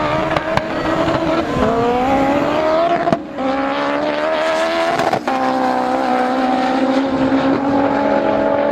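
Two drag cars, a 1000 hp turbocharged 9AGE Toyota Corolla and a Nissan GT-R, launching and accelerating hard. An engine note climbs in pitch through the gears, with shifts about three and five seconds in, then holds a high, nearly steady pull.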